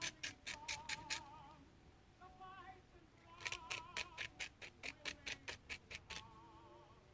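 Serrated knife sawing through a cooked steak: quick back-and-forth scraping strokes, about five a second, in a short run at the start and a longer run of about three seconds midway, over faint background music.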